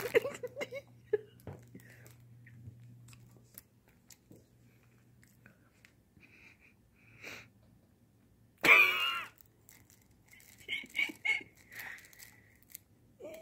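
A beagle licking and chewing at a crinkly plastic honey bun wrapper, giving soft scattered crinkles and small clicks. A brief human vocal sound comes about nine seconds in.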